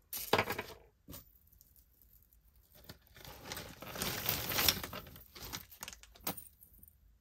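Metal jewelry chains being pulled from a pile and dragged across a paper towel: rustling paper with clinking, sliding chain. A short burst comes just after the start, and the longest stretch of rustling falls in the middle, followed by a few small clicks.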